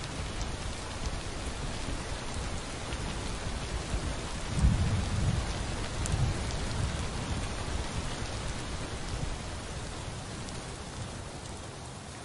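Steady heavy rain falling, with a low rumble of thunder about four and a half seconds in. The rain eases off slightly near the end.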